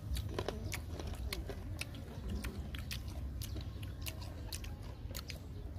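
Close-up biting and chewing of raw green mango, with many irregular sharp crunches over a low steady rumble.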